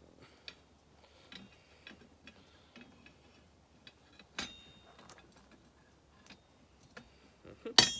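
Hammer working steel on an anvil: a run of light taps about twice a second, with a sharper ringing strike about four and a half seconds in and a louder ringing strike near the end.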